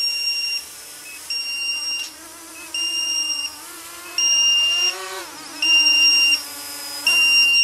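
Low-battery alarm on a small electric tricopter beeping over and over, a high steady beep about every second and a half, warning that the flight pack is running low. Under it the tricopter's electric motors whine, their pitch rising about five seconds in and then falling as it comes down to land.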